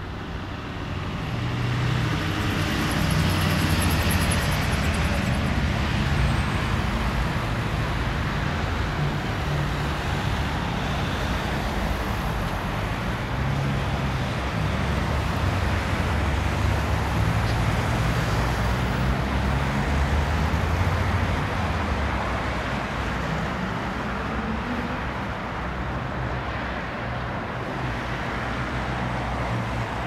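Steady low engine rumble with a shifting low hum beneath it, swelling about two seconds in and easing a little near the end.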